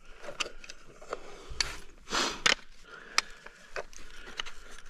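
Footsteps crunching over snow and fallen fir branches, with a few sharp twig snaps and clicks and a brief rustling scrape about two seconds in.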